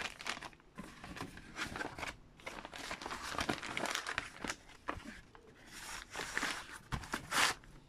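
A clear plastic bag around a reel of magnetic tape crinkling as it is handled, then cardboard tape boxes rustling and rubbing against each other, with a knock about seven seconds in.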